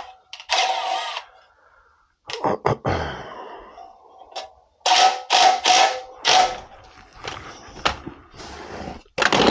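Cordless drill run in a dozen or so short bursts, the longer ones with a steady motor whine, working on the sheet-metal inducer plate of a furnace.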